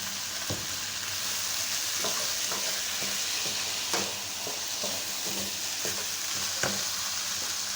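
Chicken and vegetable stir-fry sizzling in a hot pan as it is stirred, with a few sharp clicks of the spatula against the pan.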